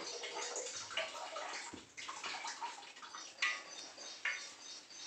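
Rope-pulled wooden churning stick whirling in a steel pot of liquid, sloshing and splashing in uneven back-and-forth strokes.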